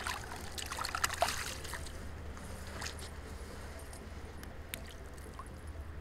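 Small splashes and trickling water around a landing net holding a rainbow trout in the shallows while the hook is worked out, busiest in the first second or so, then a few faint ticks. A steady low rumble runs underneath.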